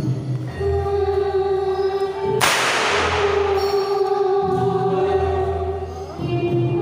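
Jaranan gamelan music with sustained sung notes and drums, cut through by a single sharp whip crack about two and a half seconds in, from the dancer's whip.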